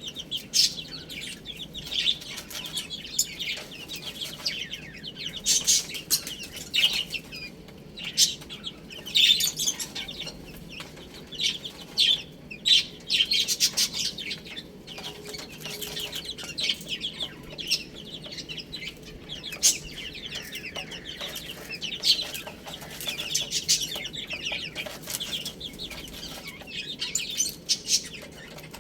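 Baby chicks chirping: many short, high-pitched peeps overlapping continuously, with a few louder calls standing out.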